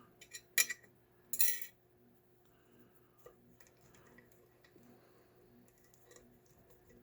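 Lock picks and a brass deadbolt being handled: a few sharp metallic clicks, then a short metallic rattle about a second and a half in, followed by faint scattered ticks.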